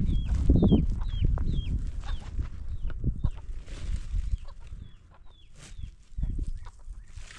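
Chickens calling: a run of short high peeps, each falling in pitch, two or three a second. Under them are low knocks and handling noise, louder in the first half.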